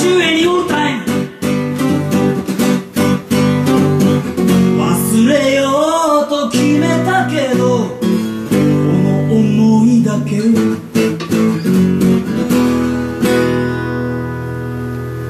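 Live acoustic guitar strummed in chords with a man singing, the song ending on a final chord that is left to ring and fade over the last couple of seconds.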